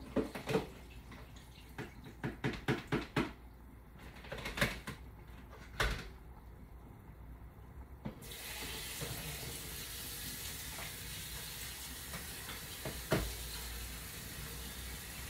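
A series of short knocks and clinks, then, about eight seconds in, a kitchen tap turned on and running steadily into a bowl, filling cooked tapioca pearls with cold water to soak.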